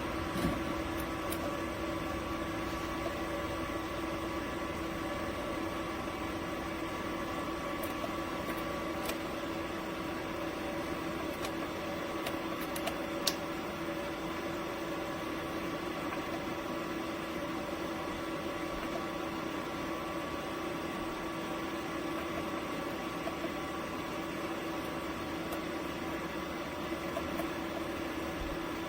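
A steady machine hum with held tones, with a few faint clicks, the sharpest about 13 seconds in.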